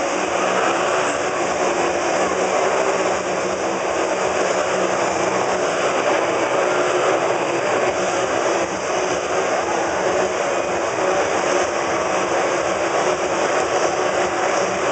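Motorcycle engines running continuously as riders circle inside a steel-mesh globe of death, making a loud, steady noise.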